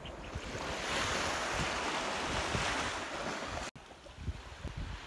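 A small wave washing up the sand at the water's edge with a broad hiss, which breaks off abruptly about three and a half seconds in, leaving a quieter wash. Wind buffets the microphone with low thumps.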